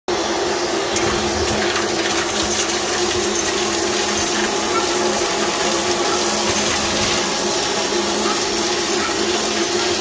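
Blue electric stick vacuum cleaner running steadily as its floor head sucks grit and dirt off a rubber-backed doormat, its motor giving an even rushing sound with a steady low hum.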